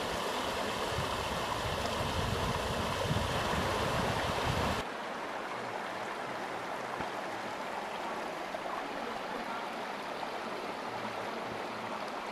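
Forest stream rushing over rock slabs in a small cascade. About five seconds in, the sound cuts abruptly to a quieter, gentler flow of the same shallow, rocky stream.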